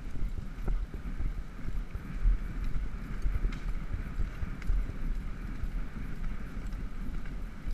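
Wind buffeting the microphone as a horse moves fast through woodland, with its hoofbeats thudding irregularly underneath.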